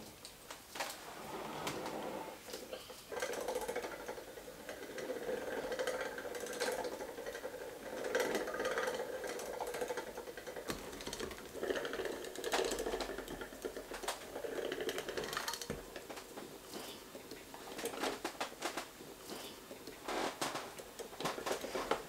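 Hand mixer's twin beaters churning thick spice cake batter in a glass bowl, an uneven mechanical rattle with many short clicks.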